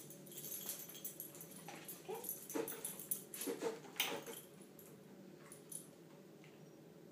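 Small dog giving several short, pitch-bending whines between about two and four seconds in, with light clicks of claws and collar tags as it hops onto a bathroom scale and settles into a sit.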